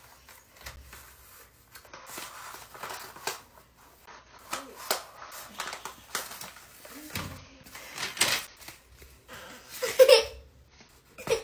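Kraft wrapping paper rustling and crinkling in irregular handfuls as a gift is unwrapped, with a louder burst about ten seconds in.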